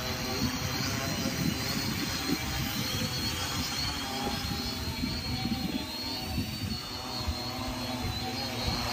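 Quadcopter drone's propellers whirring steadily as it descends and hovers low over the grass to land.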